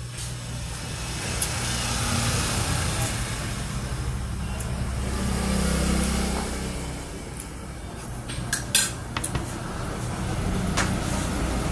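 Road traffic: a motor vehicle passing, getting louder toward the middle and then fading, over a steady low hum. A few sharp clinks of cutlery on plates come about three quarters through.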